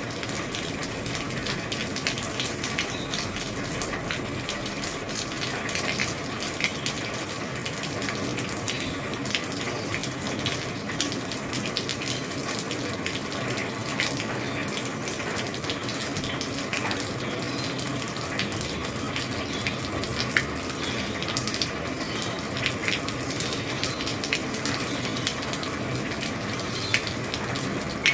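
Heavy rain on an old roof: a steady hiss of falling rain with many sharp drop ticks scattered through it.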